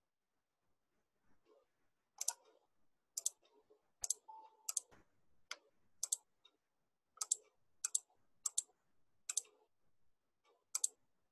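Computer mouse clicks: a dozen or so single sharp clicks, spaced about half a second to a second apart, starting about two seconds in.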